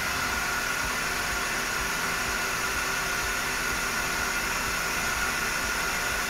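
CNC lathe drilling under flood coolant: the spindle turns the workpiece while a drill feeds into its face on a peck-drilling cycle, giving a steady hiss with a steady high whine.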